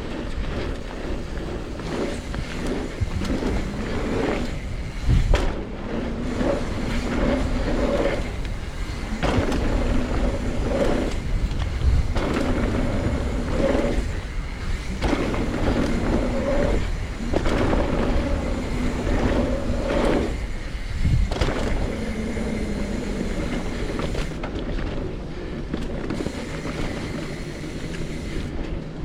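Mountain bike riding down a rough trail: continuous tyre and wind noise with rattling, and heavy thuds from hard landings three times.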